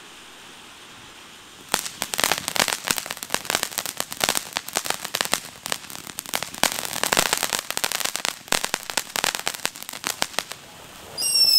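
Ground fountain firework spraying with a steady hiss, then, about two seconds in, breaking into dense rapid crackling that lasts until near the end. Just before the end a short high whistle, falling in pitch, begins.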